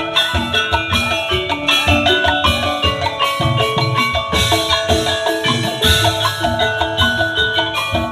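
Tongklek music: an ensemble of tuned bamboo percussion plays a busy, rhythmic melody of short struck notes over a steady low beat.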